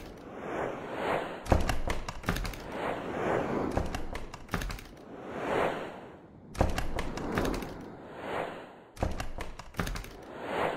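Added soundtrack of repeated swelling whooshes, each building over about a second, broken by sharp hits about every two seconds.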